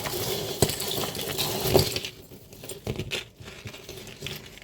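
Small metal jewelry pieces clinking and a plastic bag rustling as the pieces are sorted by hand; the rustling stops about two seconds in, leaving a few light clicks.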